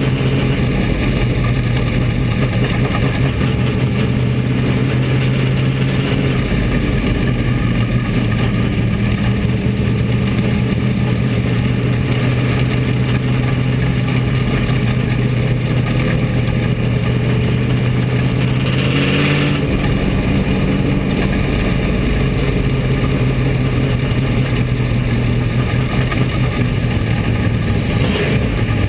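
Bomber-class dirt-track race car's engine heard from inside the cockpit, running hard at a steady pitch. A brief rush of noise cuts in about two-thirds of the way through.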